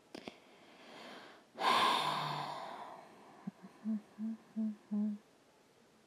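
A woman breathes in, lets out a long breathy sigh, then hums four short notes.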